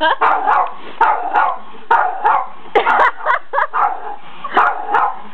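Dachshund barking repeatedly in short, irregular bursts, aggressive barking at a person it is going after.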